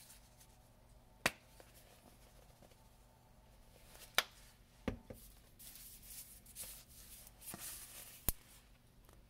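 Seasonings being added to an empty stainless steel pot: a few sharp clicks from the spice containers, and in the second half about three seconds of light, high, hissing patter as seasoning is shaken onto the pot's bottom.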